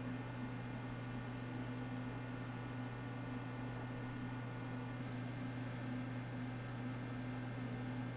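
Steady low electrical hum under an even hiss, with nothing else happening.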